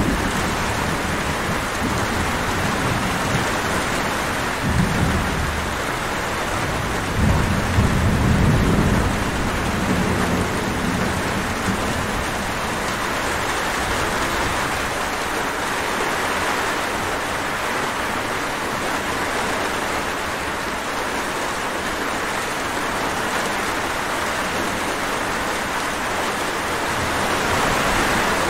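Steady rain falling, an even hiss that does not let up. Low rumbles rise under it about five seconds in and again from about seven to eleven seconds.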